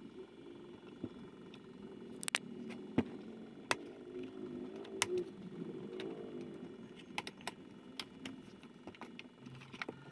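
Foam liner pads being pulled out of a motorcycle helmet: soft rustling of fabric and foam, broken by about ten short, sharp clicks and snaps as the pads' fastenings come loose.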